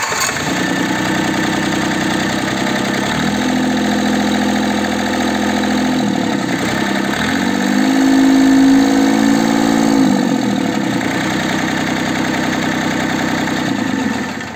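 Yanmar 3TNC78 24-horsepower three-cylinder diesel catching just as the clip begins and idling, revved up and back down twice (about three and seven seconds in, the second time higher and louder), then dying away near the end. It holds a steady idle: the engine runs well.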